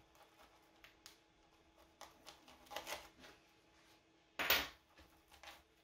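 Gloved hands pulling dense closed-cell foam out of a shaped cut-out: faint rustles and scrapes of the foam, with one short, louder scrape about four and a half seconds in.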